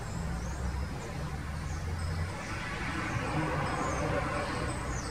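Low, steady road-traffic rumble that swells as a vehicle passes about three to four seconds in, with faint, short, high chirps from small birds scattered through it.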